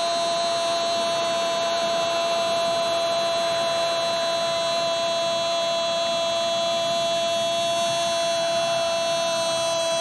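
A football commentator's drawn-out '¡Gol!' call: one long shout held at a steady high pitch.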